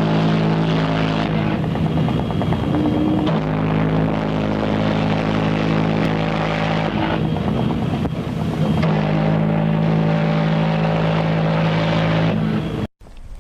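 Ship's horn sounding one long, deep, steady blast, with a brief shift in tone about three seconds in, cutting off suddenly near the end.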